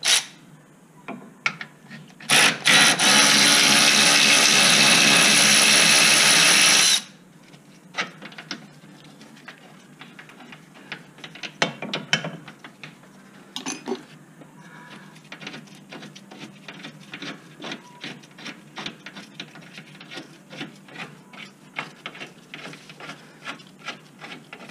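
A handheld power tool (drill or power ratchet) whirs steadily for about five seconds, starting a couple of seconds in, as it spins out a suspension bolt that has just been broken loose. For the rest of the time there are light clicks and clinks of hand tools and metal parts being handled.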